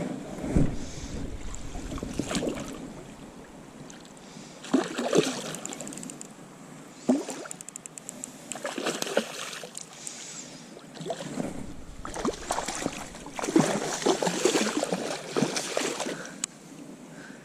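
Water splashing and sloshing in irregular bursts, with handling noise on the microphone, as a caught trout is dealt with at the water's edge.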